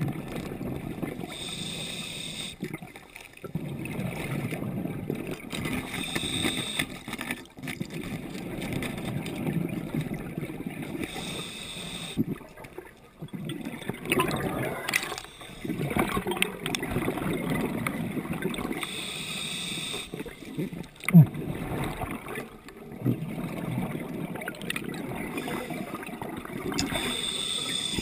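A diver breathing through a scuba regulator underwater: a hissing inhale recurring about every four to five seconds, each followed by a rush of exhaled bubbles. One sudden sharp knock stands out about two-thirds of the way through.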